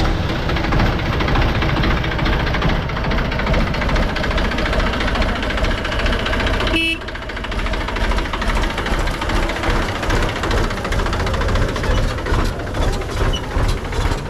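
Diesel engine of a heavy farm vehicle running with a fast low chugging, just after being started. A short horn beep sounds about seven seconds in, and the engine is a little quieter after it.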